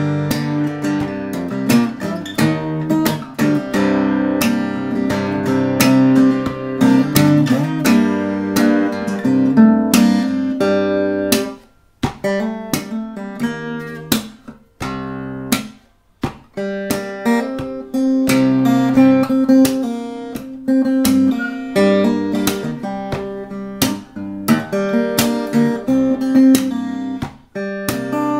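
Solo acoustic guitar in an open tuning (C G C G Bb D), played fingerstyle with many sharp percussive hits among the picked and strummed notes. The playing drops out briefly about 12 and 16 seconds in.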